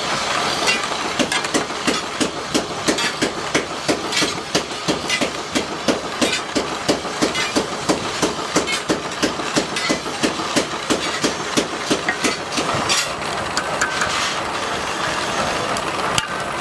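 Bench drill press running as it bores through a layered cleaver handle, with a regular knocking about three times a second that stops about 13 s in.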